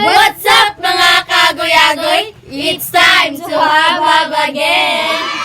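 A young voice singing unaccompanied in short phrases, its pitch bending and wavering.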